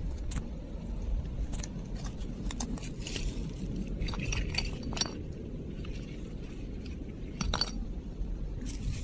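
Loose coral rubble and empty shells clinking and scraping as they are shifted, in scattered sharp clicks that bunch together in the middle and again near the end, over a steady low rumble.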